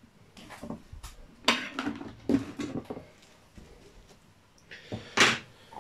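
Large white plastic container being set down on a cutting board and handled: a string of light knocks and scrapes of plastic, with a louder sharp scrape just after five seconds in.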